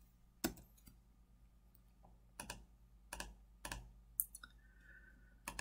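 Scattered single clicks of a computer mouse, about half a dozen, spaced irregularly with quiet room tone between them.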